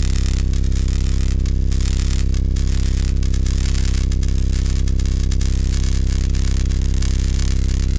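Electronic drone soundtrack: a steady, deep, sustained low tone layered with dense, flickering static hiss, held at an even level.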